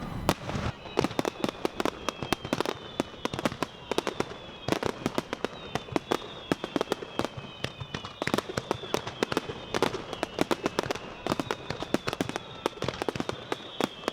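Aerial fireworks crackling: a dense, rapid run of sharp pops and crackles, several each second, with faint high whistling tones sliding slowly downward.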